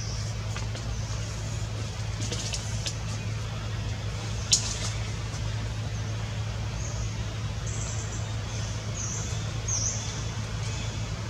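Steady low hum under a noisy background, with a few faint clicks, one sharp click about four and a half seconds in, and short high chirps in the second half.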